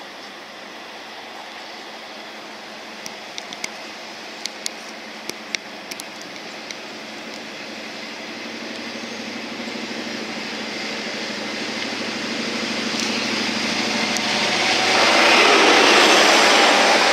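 Grand Central Class 43 HST power car running in and passing close, its diesel engine and wheels growing steadily louder and loudest near the end. A few sharp clicks come three to seven seconds in.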